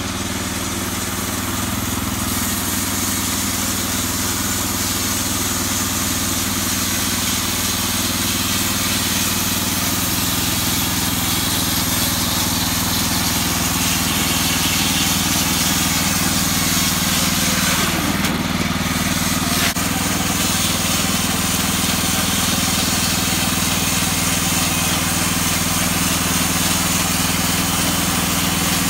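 WoodMaxx portable band sawmill running steadily under load, its engine hum under a dense hiss as the band blade cuts a shortleaf pine log. The sound grows louder in the first couple of seconds and drops off right at the end.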